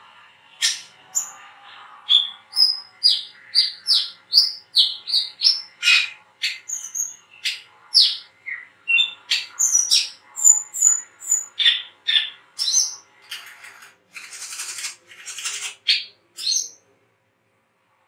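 Male brown-throated sunbird (kolibri kelapa, 'wiceh') calling in a rapid series of sharp, high chirps and short sliding notes, about two to three a second. This is the chattering 'ngriwik' song. Near the end there are about two seconds of rough hissing.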